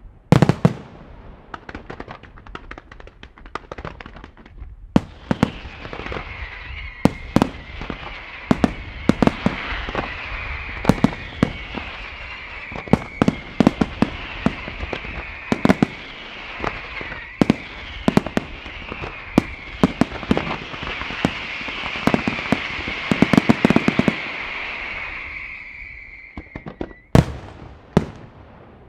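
A fireworks display of aerial shells bursting in rapid succession, many sharp bangs one after another. Under them runs a continuous high hissing and whistling that dies away after about 26 seconds. A couple of last loud bangs come near the end.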